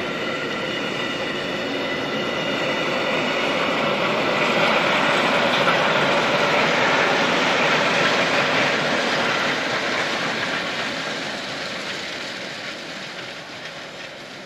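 Rhaetian Railway metre-gauge train of passenger coaches and freight wagons rolling past on a curve: the wheels rumble over the rails, with a thin high wheel squeal in the first few seconds. The sound swells toward the middle and fades as the last wagons go by.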